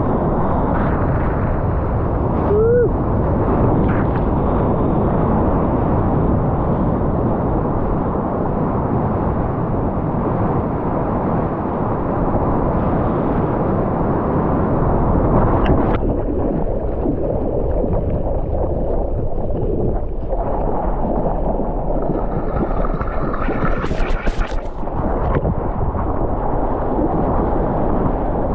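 Water rushing and churning, with wind buffeting a GoPro's microphone in the surf: a steady, loud wash of noise. Near the end there are a few sharp splashing clicks.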